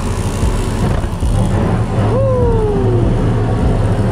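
Gas burners of a York rooftop heating unit firing after ignition, a steady low roar. About two seconds in, a short tone slides downward for about a second.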